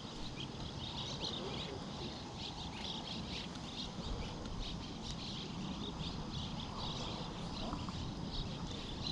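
Small birds chirping over and over, short high calls packed close together, over a steady rush of water from the dam spillway.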